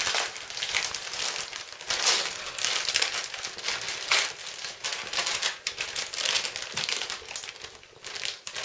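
Gift wrapping paper crinkling and tearing as a present is pulled open by hand, in quick, irregular rustles.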